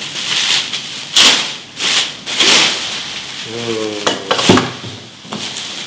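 Plastic bubble wrap being pulled off and crumpled by hand: loud crinkling and rustling that comes in several bursts.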